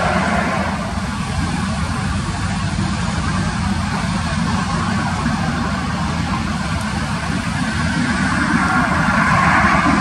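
Jet airliner engine noise with gusty wind buffeting the microphone as a low rumble; the engines' hiss swells near the end as a twin-engine airliner on final approach draws closer.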